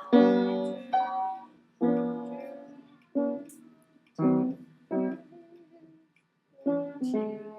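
Piano chords played one after another, about seven in all, each struck and left to ring and fade, with short gaps between them: someone trying out the chord changes of a song.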